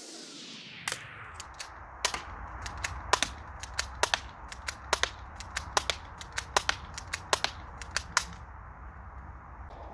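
Airsoft gun fired in a quick, irregular string of sharp snaps, about three a second, stopping near the end, over a low steady rumble.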